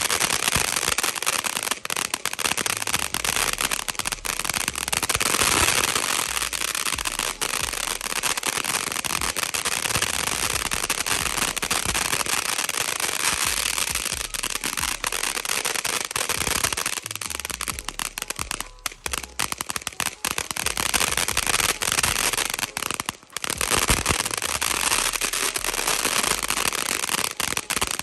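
TNT Living the Dream crackling fountain firework: a dense, continuous crackle of countless small pops, with brief lulls about two thirds of the way through.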